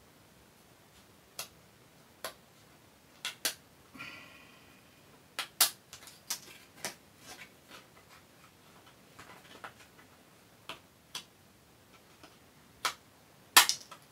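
Stampin' Up! Paper Snips cutting cardstock: a string of irregularly spaced, sharp snips, with a brief rustle of paper about four seconds in. The loudest snip comes near the end.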